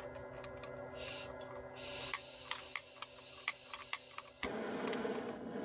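Gas torch on a stove gas cartridge: gas hissing while the igniter is clicked about ten times, then the flame catches about three-quarters of the way in and burns with a steady rush.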